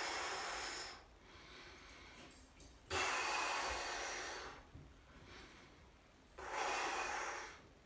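A man breathing heavily while holding a legs-over-head stretch on the floor: three long, noisy breaths, each about a second and a half, with quiet gaps between them.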